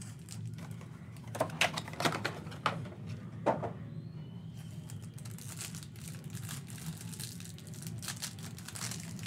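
Plastic cellophane wrap on a stack of trading cards crinkling as it is handled, with several sharp clicks and taps a second or two in as the stack is set down and picked up.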